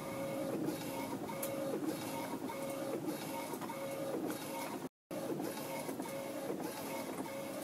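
Quiet background music: soft notes repeating in an even pattern over a hiss, briefly cutting out about five seconds in.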